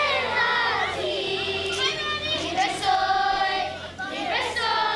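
Children's choir singing in unison, held notes in phrases with short breaths between them about a second and about four seconds in.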